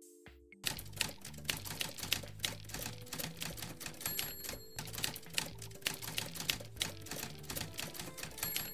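Typewriter sound effect: rapid, irregular key clatter starting under a second in, with a short high ring like the carriage-return bell about four seconds in and again near the end. Background music with a bass line plays underneath.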